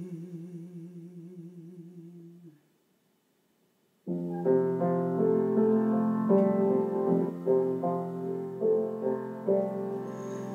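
The singer's last held note, with vibrato, fades out, and after a second and a half of silence a piano interlude begins about four seconds in, playing chords and a melody between verses of the song.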